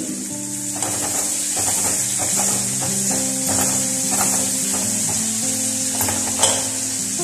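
Onions, green chillies, curry leaves and dried anchovies sizzling in an aluminium kadai while a wooden spatula stirs and scrapes through them, with a sharp tap of the spatula on the pan a little after six seconds in. Background music with held notes plays under it.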